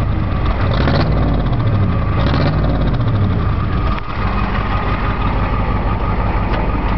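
A 1994 Ford F-350's 7.3-litre IDI V8 diesel engine running at idle, its note wavering up and down a little in the first few seconds. A short sharp click about four seconds in.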